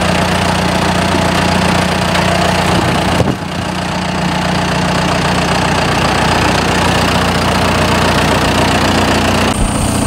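John Deere tractor's diesel engine idling steadily, its mower PTO not yet engaged. There is a short break in the sound about three seconds in.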